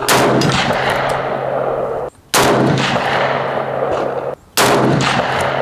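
Three semi-automatic rifle shots from an AK-47 firing 7.62x39 PMC Bronze 123-grain ammunition, about two seconds apart. Each shot rings out and echoes away slowly.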